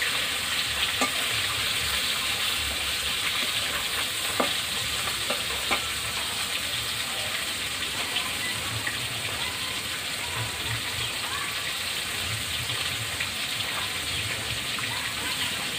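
Pieces of fish frying in hot oil in a kadai, with a steady sizzle. A few sharp clicks come in the first six seconds.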